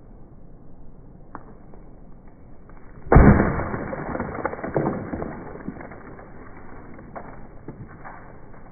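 A sledgehammer blow smashing an object: one sudden loud crash about three seconds in, followed by breaking and clattering debris that trails off over the next few seconds.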